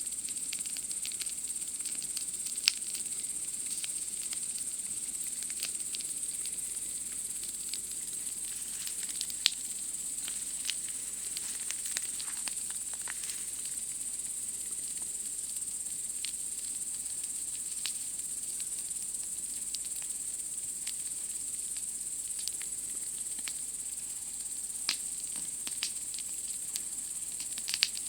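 Campfire crackling with scattered sharp pops, a few louder ones, over a steady high-pitched chorus of night insects.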